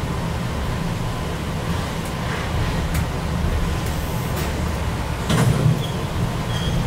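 Chikuho Electric Railroad 3000 Series train pulling away from a station, heard from the cab: a steady low running rumble of motors and wheels, with a few light clicks and a louder clunk about five seconds in.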